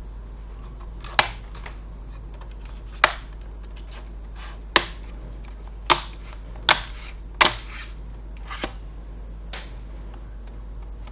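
Plastic retaining clips of an ASUS F541U laptop's keyboard top case snapping loose as a plastic pry tool is worked along its edge. There are six sharp clicks at irregular intervals, then two fainter ones.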